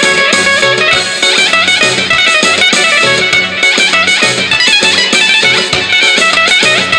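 Instrumental break of a Mizrahi pop backing track: a fast plucked-string lead melody runs over a steady beat.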